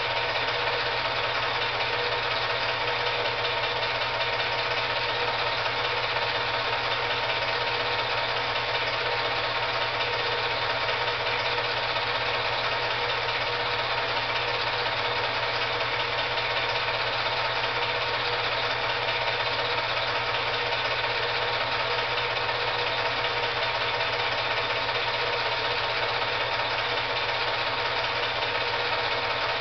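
8mm film projector running steadily: a constant mechanical whir with a low hum and a fast, even rattle, the only sound on this otherwise silent film transfer.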